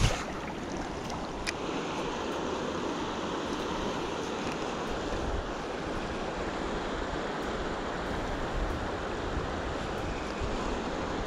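Steady rush of flowing river water, with a couple of faint clicks in the first two seconds.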